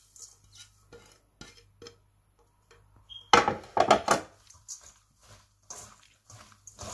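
Utensils and containers knocking and clinking against a mixing bowl as spices are added to the chopped vegetables: a scatter of light taps, one brief ringing clink, and a louder clatter a little over three seconds in.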